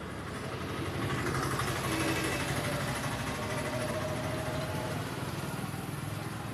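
A child's battery-powered ride-on toy car's electric drive motor and gearbox running with a steady whir.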